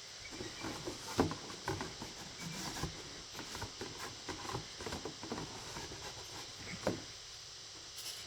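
Close-up eating sounds while finishing the last of a meal: a run of small, irregular clicks and taps for about seven seconds.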